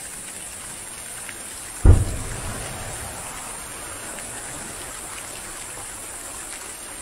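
A single deep firework boom about two seconds in, with a low rumble that rolls away over about a second, against a steady hiss.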